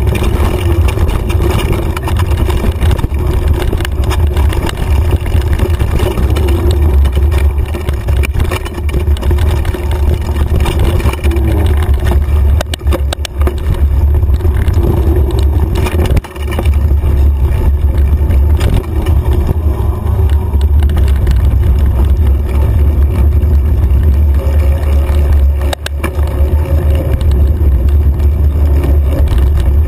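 Loud, steady low rumble of wind buffeting and trail vibration picked up by a handlebar-mounted camera on a mountain bike riding fast over dirt singletrack, with scattered knocks and rattles from bumps. The rumble briefly drops out about sixteen seconds in.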